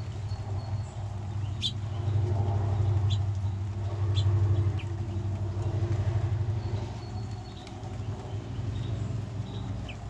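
Low, steady engine hum of a motor vehicle running, swelling loudest in the middle and easing toward the end. A few short, high bird chirps sound over it.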